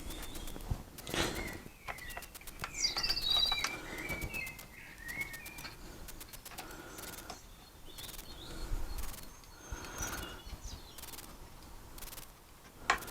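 Birds chirping in the background in short, high twittering calls, mostly in the first half, with a few faint knocks and taps.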